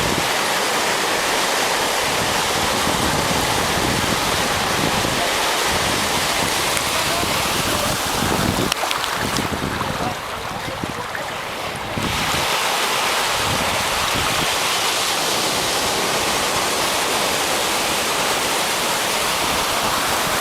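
Sea surf washing steadily onto a beach, with wind rumbling on the microphone; the hiss eases briefly about halfway through.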